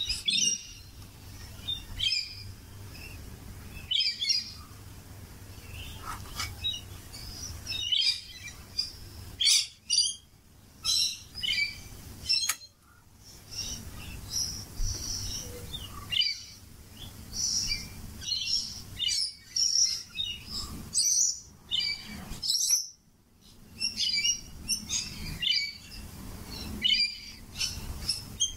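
Rainbow lorikeets and galahs calling in the background: many short, high chirps and calls in quick, irregular succession.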